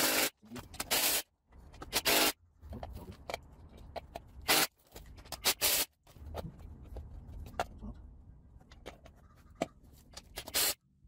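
Tools and metal parts being worked on a car's strut assembly during disassembly: several short, loud bursts of scraping noise with sudden gaps between them.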